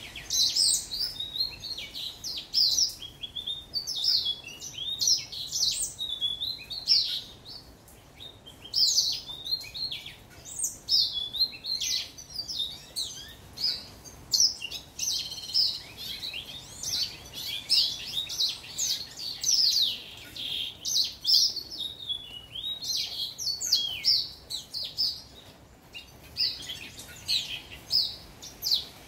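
Young house finch singing: long runs of rapid, high warbled notes that slide up and down, phrase after phrase, with short pauses between phrases.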